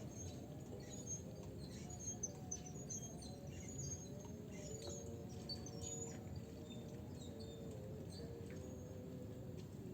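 Small birds chirping in many short, high calls, over a steady low drone.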